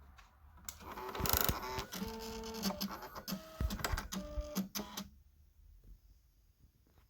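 Canon Typestar 10-II electronic typewriter's print mechanism running, with rapid clicking and a mechanical whine that jumps between pitches, from about a second in until about five seconds in.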